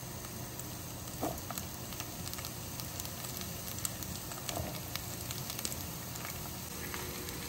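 Beef cubes and diced bell peppers and onion frying in hot olive oil: a steady sizzle with many small crackles.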